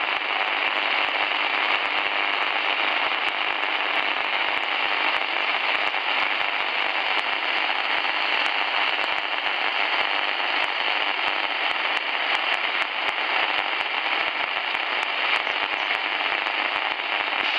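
Tecsun portable shortwave receiver tuned to 2133 kHz, on a railway radio channel, playing steady band hiss through its speaker, with many irregular crackles of static and no voice on the channel.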